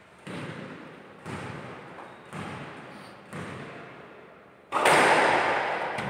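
A squash ball bounced on the wooden court floor four times, about once a second, each with a short echo. Near the end a much louder sudden noise starts and lasts over a second.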